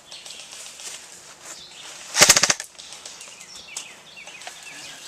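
A short full-auto burst from an airsoft gun, a rapid string of shots lasting under half a second, about two seconds in. Faint scattered clicks and pops are heard around it.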